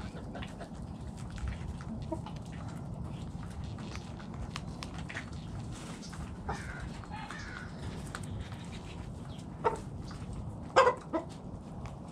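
Backyard hens clucking now and then in short calls, the loudest near the end, with scattered faint ticks over a steady low background rumble.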